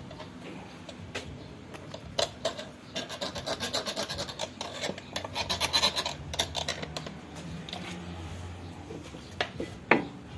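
Quick back-and-forth scraping strokes of a hand tool on the metal of a car's front lower control arm and steering knuckle, bunched together over a few seconds. A single sharp metallic knock near the end.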